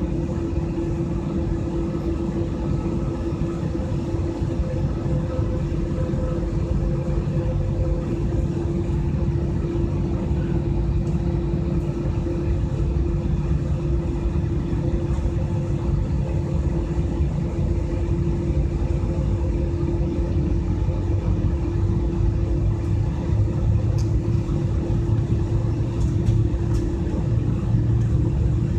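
Jet airliner cabin noise: the engines run steadily with a constant hum over a heavy low rumble, and the rumble grows stronger in the last few seconds.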